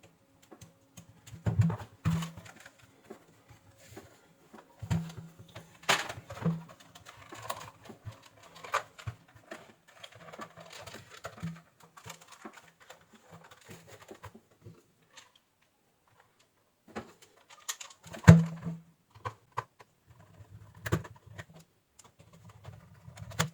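Plastic hair dryer housing being handled and fitted back together: irregular clicks, taps and knocks of plastic parts, with the sharpest knock about 18 seconds in.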